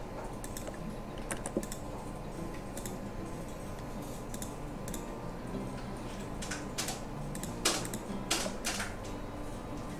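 Scattered clicks of a computer mouse and keyboard, with a quick run of clicks about three quarters of the way through, over a faint steady hum.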